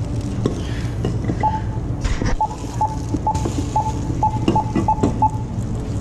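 Checkout register beeping about ten times in quick, uneven succession as a purchase is rung up, each a short beep at the same pitch, with a few light knocks and a steady low hum underneath.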